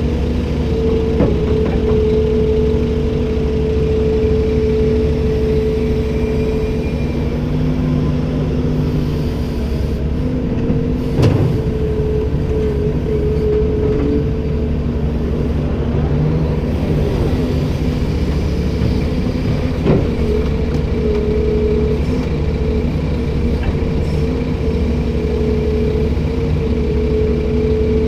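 Komatsu PC290-10 excavator running steadily: a diesel engine drone with a steady whine on top. Brief knocks come about 11 and 20 seconds in.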